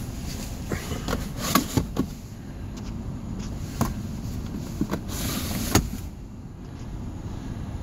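Clicks, knocks and a short sliding scrape of a car's center console being handled by hand: the slatted roll-top cover and the cupholder tray. The sharp clicks come in a cluster in the first couple of seconds and again later, over a steady low rumble.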